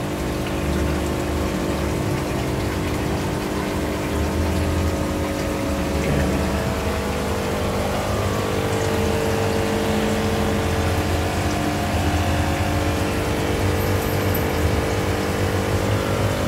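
Aquarium pumps and aeration running: a steady mechanical hum with the noise of bubbling water from the tanks.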